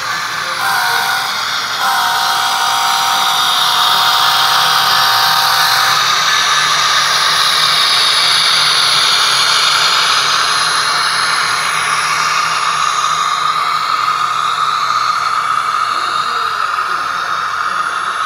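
Model diesel locomotives running past close by: the high whine of their small electric motors and gears, with the hiss of wheels rolling on the rails. The sound grows louder about two seconds in and falls away at the very end as the last unit passes.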